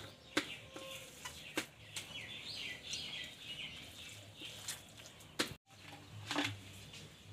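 Birds chirping, with a warbling run of calls about two seconds in, over scattered light clicks and taps of a hand working batter in a steel plate. The sound cuts out for a moment just past halfway.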